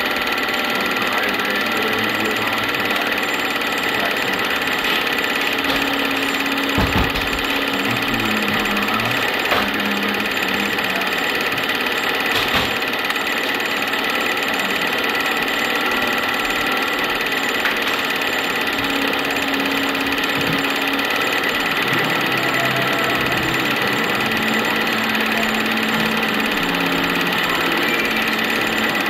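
Film projector running: a steady mechanical whirr with a fine clatter, unbroken throughout.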